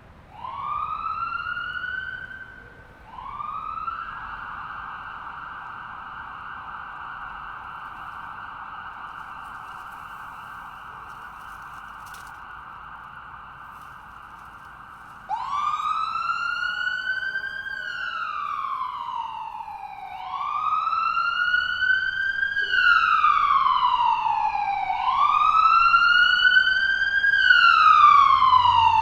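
Ambulance siren: two short rising whoops, then a steady held tone for about eleven seconds. About halfway through it switches abruptly, louder, to a slow wail rising and falling about every five seconds, growing louder toward the end.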